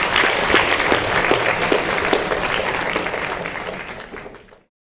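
Audience clapping after a lecture, a dense patter of many hands that fades out near the end and then stops abruptly.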